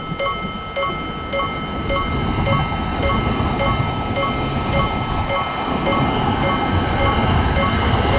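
Japanese level-crossing alarm ringing its two-tone clang about twice a second, while a train's rumble builds and grows louder as it approaches.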